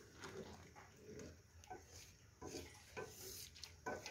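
Faint stirring of wet rice and water in an aluminium pot with a wooden spoon: soft sloshing with a few light knocks.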